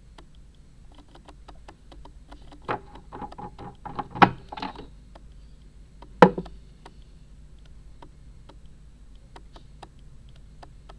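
Faint, irregular clicking of a camera lens struggling to autofocus, with a cluster of louder knocks about three to five seconds in and one sharp knock about six seconds in.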